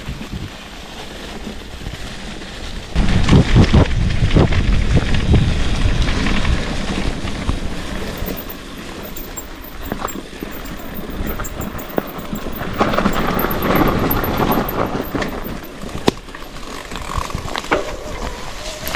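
Wind buffeting an action camera's microphone along with the rattles and knocks of a mountain bike ridden over rough ground. It gets louder and heavier about three seconds in.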